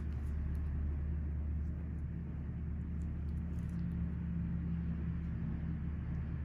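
A steady low hum with no change throughout.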